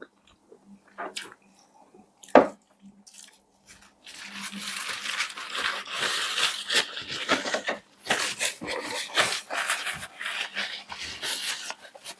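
Crunching and chewing of crispy fried chicken close to the microphone, in two long stretches with a short break between them, after a few scattered clicks and a sharper tap.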